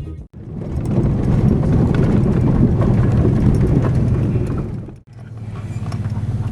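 A vehicle driving, heard from inside: rough road and tyre noise, then after a cut about five seconds in, a steadier low engine hum.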